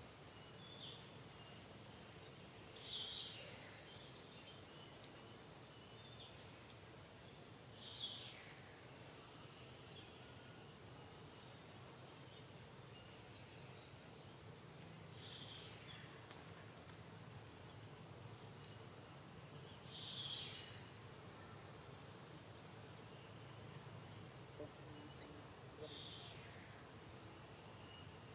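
Outdoor ambience of insects trilling steadily at a high pitch, with birds calling every few seconds: short high chirping phrases alternating with whistles that fall in pitch.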